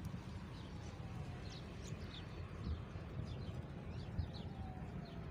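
Small birds chirping, many short high chirps in quick succession, over a steady low rumble.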